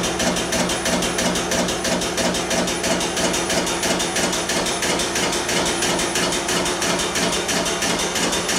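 Air-driven liquid pump cycling rapidly as it pumps water into a pipe sample under burst test, a fast, even knocking of its strokes over a steady low hum.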